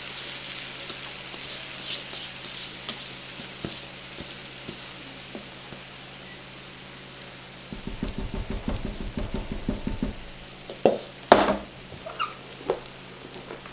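Cornbread batter sizzling and crackling as it is poured and scraped from a bowl into a hot cast-iron skillet, the sizzle slowly dying down. Past the middle comes a few seconds of quick scraping of a spatula in the bowl, then a few sharp knocks near the end.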